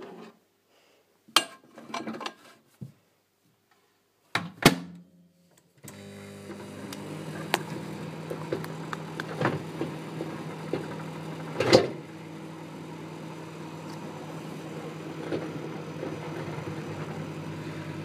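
A few clicks and knocks, then about six seconds in a microwave oven starts and runs with a steady hum, with occasional sharp clicks over it.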